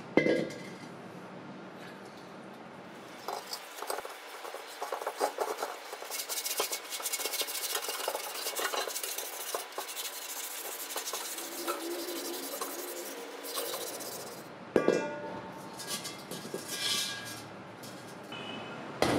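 An empty steel gas cylinder being rinsed under a running tap and scrubbed by hand, with water splashing, scraping and scattered clinks and knocks of the metal. There is a sharp knock just after the start and another about three-quarters of the way through.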